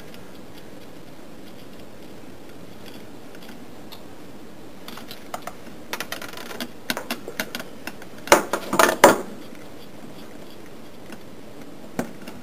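Screwdriver tip and a 1/4-20 screw with washer clicking and tapping against the gearbox's output shaft and sprocket as the screw is driven in. The small metallic clicks come in quick irregular runs from about five seconds in, loudest at around eight to nine seconds, with one more near the end.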